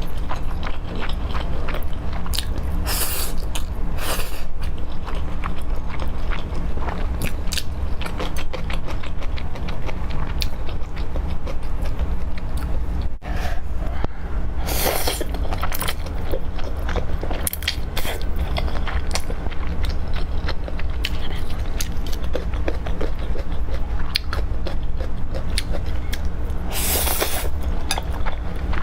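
Close-miked eating: continuous chewing with many small wet clicks of mouth and food, broken by a few louder noisy bursts, over a steady low hum.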